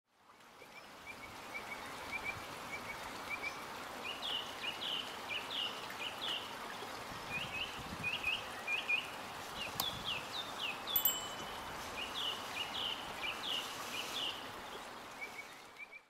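Small birds chirping again and again over a steady wash of running water, fading in over the first two seconds.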